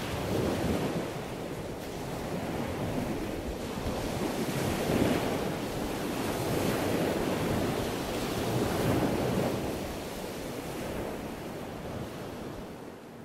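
Ocean surf: waves washing in and drawing back, the noise swelling and ebbing every few seconds and fading away at the end.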